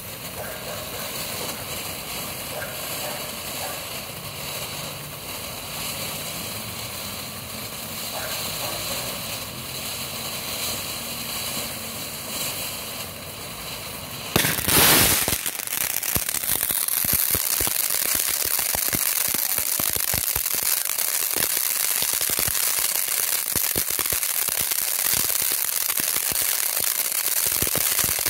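Black Cat '100 Foot Fountain' firework burning with a steady spraying hiss. About halfway through there is a loud burst, and from then on it crackles densely and louder.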